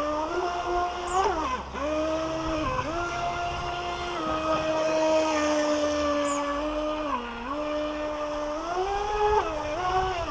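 Electric motor and water-jet pump of a small 3D-printed RC jet boat, powered by a 3S LiPo, whining at a high, steady pitch. The pitch dips and climbs back several times: about a second in, near three seconds, around seven seconds, and twice near the end.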